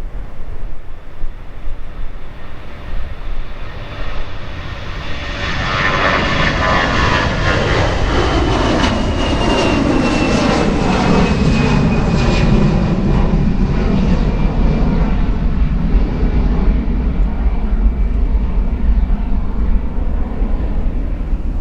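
Airbus A320-214 jet with CFM56 engines going past close by. The engine noise builds over several seconds, with a high whine that slides down in pitch as the jet passes. A steady low rumble carries on after it.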